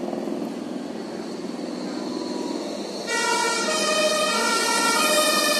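Street traffic noise, then about three seconds in a two-tone emergency vehicle siren starts up loudly, switching back and forth between two pitches.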